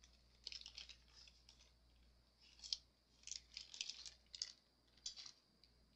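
Faint, scattered small clicks and rustles of jewelry-making supplies being handled: a jump ring and a necklace cord being readied.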